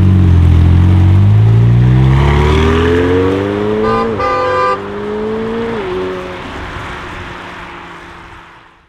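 McLaren 720S twin-turbo V8 accelerating hard away, its pitch climbing through the gears with two upshifts, about four and six seconds in, then fading into the distance. A brief horn-like tone sounds over it around the first shift.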